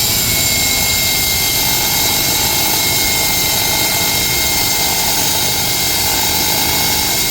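Ring saw running steadily, a loud even roar with a steady high whine over it.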